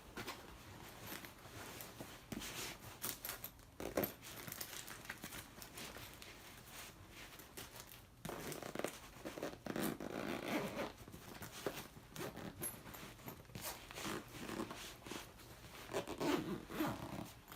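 Zippers on a fabric laptop backpack being pulled, with the nylon rustling as the bag is handled and packed and scattered sharp clicks. The handling gets louder about halfway through and again near the end.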